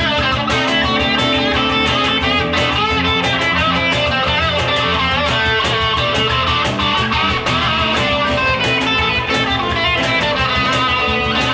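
A band playing a guitar-driven song live: electric and strummed guitars over a steady beat.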